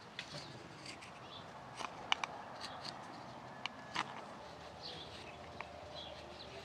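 Morakniv 106 sloyd knife taking short paring cuts along an alder spatula handle: a scatter of crisp clicks and snicks as the blade bites and shavings come away, loudest about two seconds in and again at four seconds.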